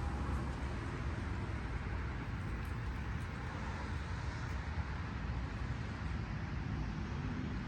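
Steady low rumble with a light hiss, without distinct events or changes.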